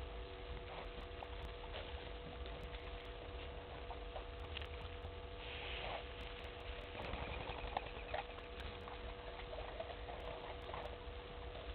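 African elephants drinking at a waterhole: scattered small splashes, drips and patters of water as they draw it up their trunks and squirt it into their mouths, one louder splash about halfway through, over a steady faint hum.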